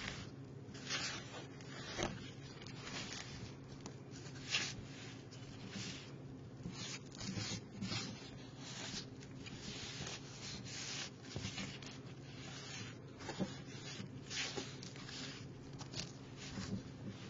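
Hands kneading and squeezing damp homemade kinetic sand (sand mixed with cornstarch and oil) in a plastic tray: irregular gritty rubbing and squishing strokes, with a faint steady low hum beneath.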